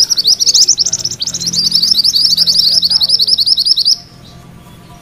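A caged mantenan kuning songbird singing a continuous rolling song ("ngerol") of quick, rising high chirps, several a second, that stops abruptly about four seconds in.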